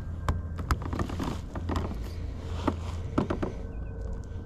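Several sharp clicks and light knocks from fishing gear being handled in a kayak, a few of them close together late on, over a steady low rumble.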